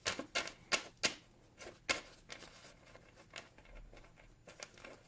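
Sticker sheets and their packaging being handled and pushed aside: scattered light rustles and short taps, a dozen or so irregular clicks.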